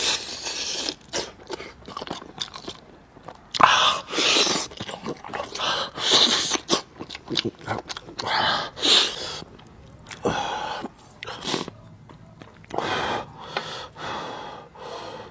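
A person chewing and biting into meat close to the microphone: irregular wet mouth sounds that come in uneven bursts.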